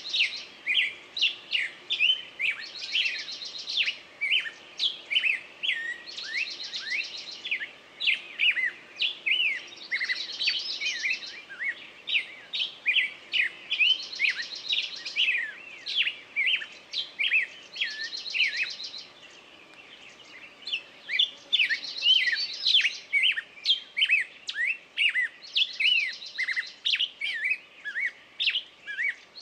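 Birdsong: many quick chirps and whistles, with a buzzy trill returning every three to four seconds and a short lull about two-thirds of the way through.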